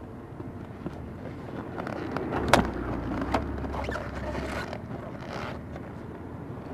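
A tipped-over Suzuki Hayabusa motorcycle being hauled back upright: two sharp knocks from the bike, the louder about two and a half seconds in and another about a second later, over a low rumble of road traffic.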